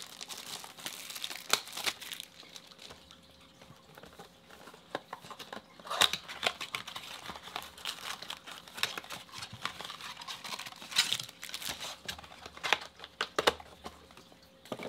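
A cardboard trading-card blaster box being opened by hand and its foil-wrapped card packs handled: irregular rustling and crinkling with sharp tearing snaps every few seconds.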